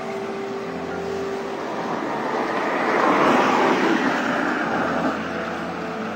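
A vehicle passing by: a rush of road noise that swells to its loudest about halfway through and then fades away, over a steady low hum.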